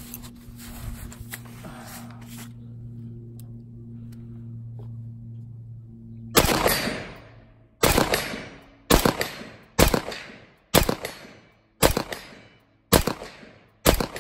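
AR-15-style rifle fired semi-automatically: eight single shots about a second apart, starting about six seconds in, each dying away over most of a second. Before the shots, a low steady hum.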